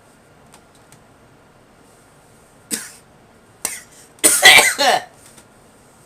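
A person coughing: three coughs, the last one longest and loudest.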